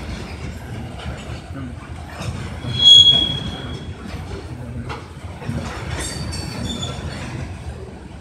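Freight train of covered hopper cars rolling through the yard with a steady low rumble. A loud, high steel wheel squeal comes about three seconds in, and fainter squeals follow around six to seven seconds.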